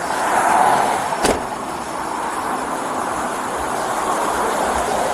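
Steady rushing car noise, loudest at first, with one sharp click a little over a second in.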